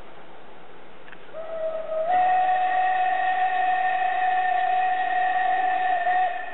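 Steam locomotive's whistle blowing one long blast, starting about a second and a half in, stepping slightly up in pitch about half a second later, and dropping in level just before the end.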